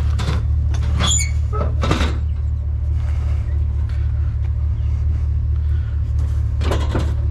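Vehicle engine idling with a steady low hum. Over it come clanks, and a metallic squeak about a second in, as a heavy piece of curbside scrap is shifted and handled; there is another knock around two seconds and more clatter near the end.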